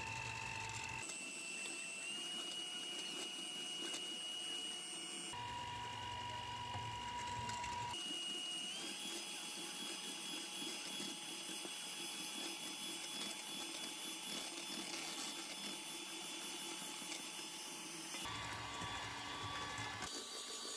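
Electric hand mixer running with its beaters whisking egg whites into foam in a stainless steel bowl: a steady motor whine whose pitch steps up or down a few times.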